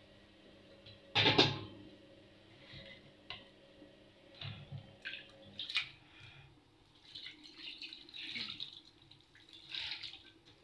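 Water being poured and splashing in short spells toward the end, with a loud clatter about a second in and a few lighter knocks.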